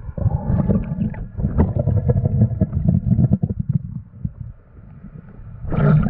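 Underwater bubbling and crackling over a low rumble, heard through an underwater camera: a loud stretch of about three seconds, a quieter lull, then another burst starting near the end.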